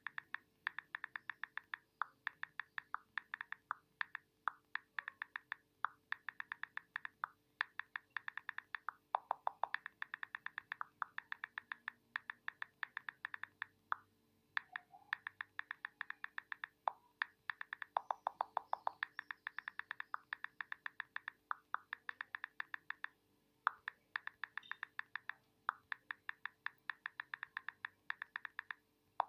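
iPhone on-screen keyboard key clicks from fast typing: runs of rapid clicks, several a second, broken by short pauses. A few lower-pitched clicks are mixed in twice.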